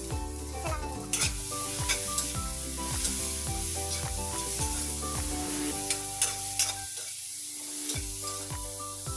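Shredded cabbage sizzling as it is stir-fried in an aluminium wok, with repeated sharp scrapes and clacks of a metal spatula against the pan, loudest a little past the middle. Background music plays underneath.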